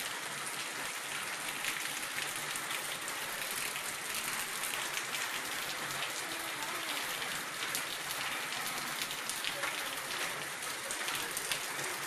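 Heavy rain falling steadily, a dense, even patter of drops on the street and balcony.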